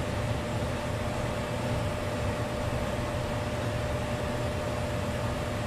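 Steady machine hum and rush of air, with a constant mid-pitched tone over a low drone, running evenly without change.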